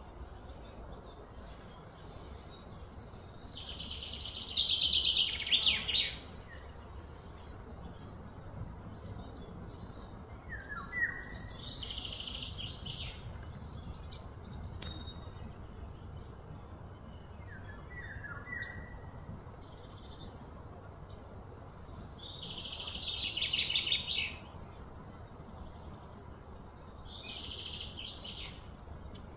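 Wild birds calling in the surrounding trees: short chirps, and two louder pulsing high trills that swell for about two seconds and then stop, a few seconds in and again about three-quarters through, over a steady low outdoor hum.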